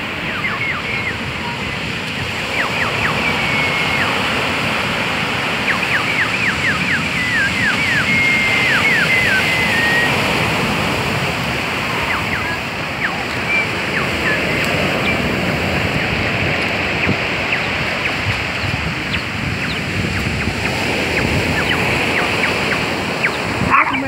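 Sea surf breaking and washing over a pebble beach, a steady rush of waves. Over it, through the first ten seconds or so, comes a run of quick high chirps and short whistles, and a few more come near the end.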